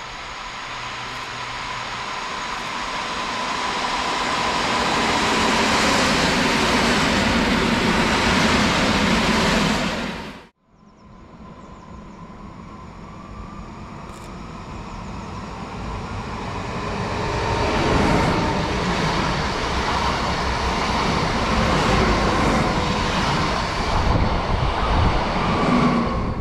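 Electric multiple-unit trains running past on the track, each growing louder over several seconds. First an EN57 regional unit, then, after a cut about ten seconds in, a coupled pair of EN78 units.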